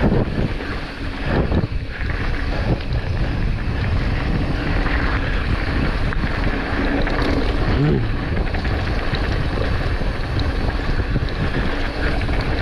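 Wind buffeting the microphone and steady trail rumble as a mountain bike rides along a dirt trail at speed.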